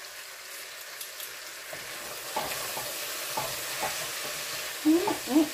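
Chicken sizzling as it fries in a pan, a steady hiss. From about two seconds in, metal tongs click and scrape against the pan.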